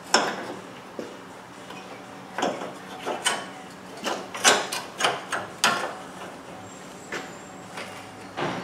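Sharp knocks and clatter of plastic and metal parts being handled and fitted by hand at a car's radiator support. There are a dozen or so separate knocks, most bunched together in the middle.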